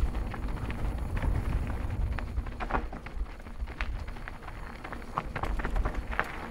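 Mountain bike rolling down a dirt singletrack: tyres on packed dirt and small stones, with scattered clicks and rattles from the bike over a low wind rumble on the camera microphone.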